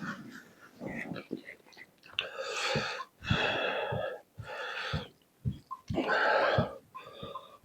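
A person eating close to the microphone: chewing and mouth noises, with short, irregular noisy breaths between bites.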